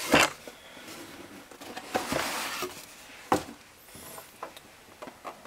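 Cardboard box being handled and opened: a sharp knock at the start, the lid flaps scraping and rustling open about two seconds in, and another sharp knock just after three seconds, with small taps in between.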